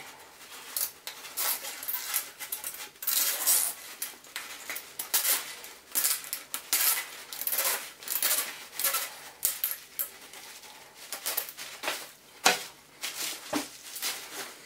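Corrugated plastic tubing being pushed by hand onto the edge of an arch plate: irregular crackling and scraping of the ridged tube, with a few sharper clicks near the end.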